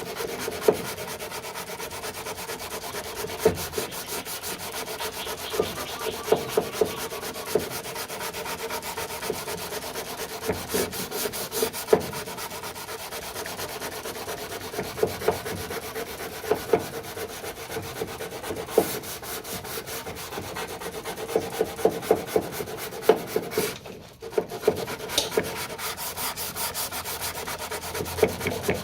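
240-grit abrasive rubbed in repeated strokes over cured body filler on a car door sill, flatting it to take out the deeper 80-grit scratches shown up by the guide coat. It stops briefly about 24 seconds in.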